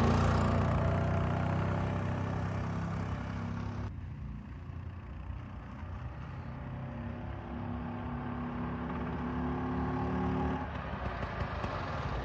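Vespa VB1 scooter's single-cylinder two-stroke engine running after its repair. It fades over the first few seconds, then revs up gradually and drops back about ten seconds in.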